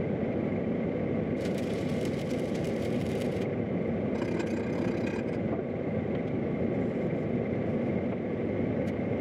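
A steady, loud mechanical drone runs throughout, with two stretches of high crackling hiss in the first half, one about two seconds long and one about a second long.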